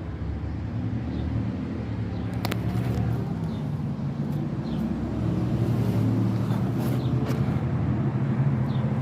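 Road traffic: car engines running and passing by, getting louder about halfway through. A few short sharp clicks sound over it.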